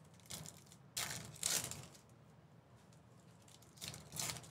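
Foil wrapper of a Merlin soccer trading card pack crinkling and tearing open by hand, in a few short bursts: one just after the start, a longer one around one to two seconds in, and another near the end.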